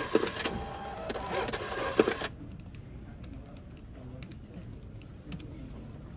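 Thermal receipt printer printing and feeding a receipt, stopping abruptly about two seconds in; a few faint clicks follow.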